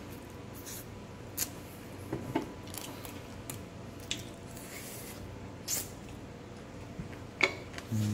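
Someone eating fried chicken wings: scattered short clicks and smacks of chewing, a second or more apart, the sharpest near the end.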